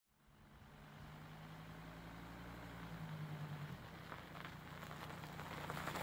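Car engine running with a steady low hum that fades out a little under four seconds in. After that comes a crackling crunch of packed snow.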